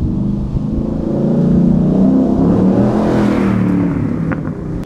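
A high-performance vehicle engine accelerating hard and passing by, loudest about three seconds in and then falling away.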